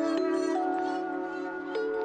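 Background music: a slow melody of held notes changing every half second or so.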